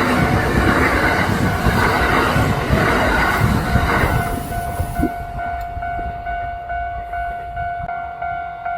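Kintetsu electric train passing at speed, its wheels clattering over the rail joints. The noise is loud for about four seconds, then drops away quickly as the train goes by, leaving a steady high tone underneath.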